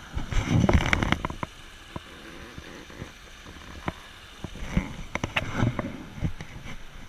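Handling noise on an action camera carried along a trail: irregular knocks and clicks with low thumps and rustling, heaviest about a second in and again around five to six seconds in.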